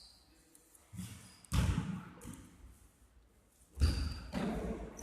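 Basketball bouncing on a sports-hall floor: a few separate thumps, about a second and a half in and again near four seconds, each echoing in the hall.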